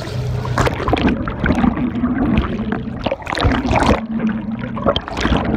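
Churning sea water splashing and gurgling, heard with the microphone dipped at and below the surface, over the low steady hum of the boat's engine.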